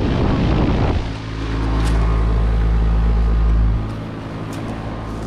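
Outdoor HVAC unit running with a steady low electrical hum, with a heavier low rumble over it that drops away about four seconds in.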